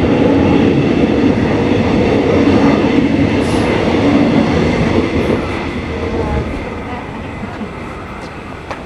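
Melbourne suburban electric train running along the station platform with a loud rumble and hiss of wheels on rails. It fades steadily over the second half as it moves away.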